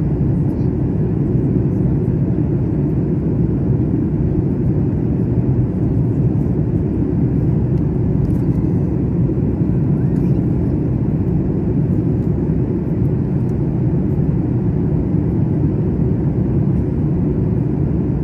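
Steady low rumble of a Boeing 737 airliner in flight, heard inside the passenger cabin: jet engines and rushing airflow at an even, unchanging level.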